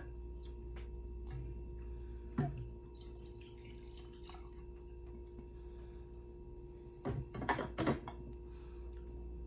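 Liquor poured from a glass decanter into a shot glass, trickling and dripping, with a sharp glass click a little over two seconds in. About seven to eight seconds in come several glass knocks and clinks as the decanter is set back on its stand, over a steady low hum.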